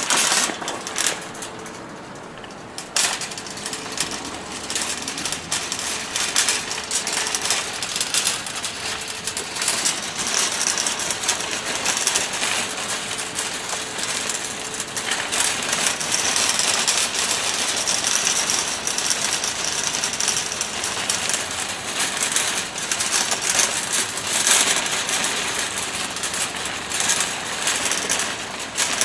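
Shopping cart rolling, with a continuous dense metal rattle and clatter that eases briefly near the start.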